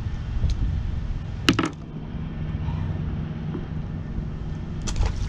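Wind buffeting the microphone, with a sharp knock and a brief ring about a second and a half in, and another knock near the end. Once the wind eases, a faint steady low hum is left underneath.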